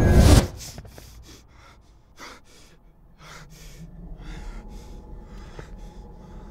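Loud dramatic music cuts off abruptly about half a second in. Then a man breathes hard in short, quick gasps, about three a second.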